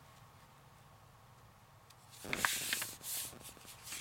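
Sheets of paper being handled and slid against each other on a desk: a quiet start, then a rustle with a few sharp crinkles from about two seconds in.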